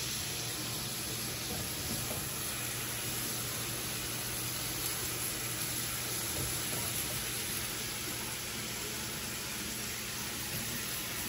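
Bacon frying in a pan, a steady sizzle and crackle of hot fat, with the kitchen vent fan's low hum underneath.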